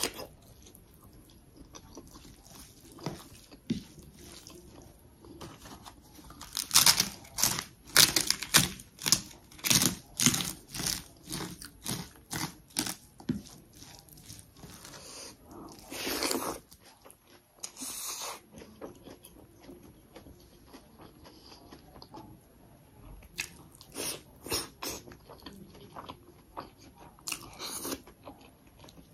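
A person eating chicken and rice close to the microphone: chewing and biting, with runs of sharp crunches at about two a second in the middle and again near the end, and a couple of longer rustling bursts between them.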